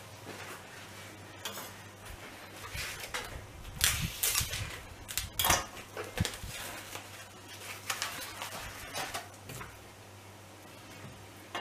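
Plastic cling film crinkling in a series of short rustles as it is pulled off a foam meat tray, with a knock as the tray and the raw beef are handled on a wooden cutting board.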